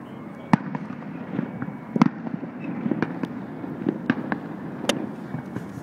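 Distant aerial fireworks going off: about six sharp cracks and bangs at irregular intervals, over a steady low background rumble.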